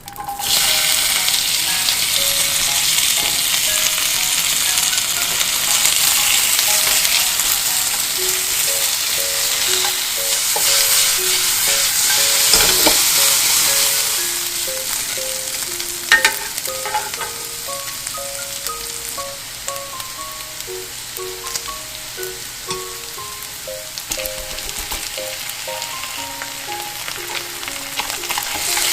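Food frying in a pan: a steady sizzle with stirring, and a sharp knock of a utensil on the pan about 16 seconds in. A soft background melody plays underneath from about a third of the way through.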